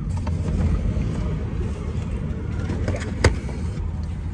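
Steady low rumble inside a stationary car, with one sharp click a little past three seconds in.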